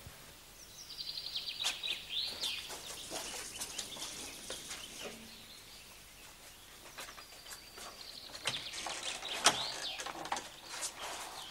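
Small birds chirping and trilling in short, high, quick phrases, in two bouts a few seconds apart, with a few light clicks.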